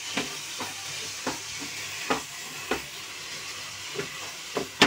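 Wooden spatula stirring and scraping grated papaya and cream around a non-stick kadhai, over a steady sizzle of the mixture roasting on the gas. The spatula strokes come about once or twice a second, the sharpest just before the end.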